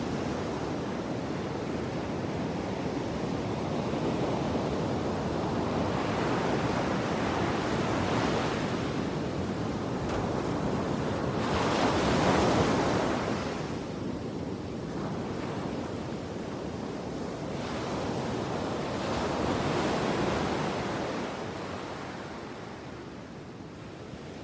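A steady rushing noise that swells and ebbs in slow surges, loudest about halfway through, then fades near the end.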